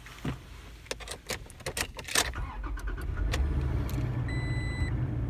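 Clicks and key rattles, then the 2019 Toyota Tacoma's engine starts about three seconds in and settles into a steady idle. A dashboard chime beeps once near the end.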